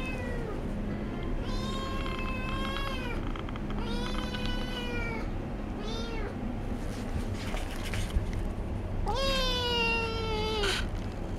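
Tabby kitten meowing over and over: about five high, wailing meows, most of them drawn out for a second or more, the last one the loudest. It is the kitten's insistent cry to be let up to where the other cats lie.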